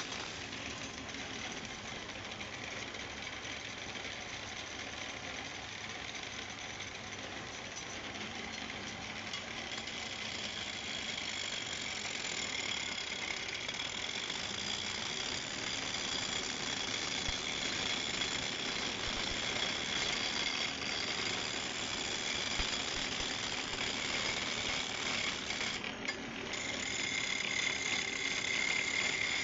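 Wood lathe running, with a steady mechanical noise and a high whine that grows stronger partway through; it dips briefly near the end.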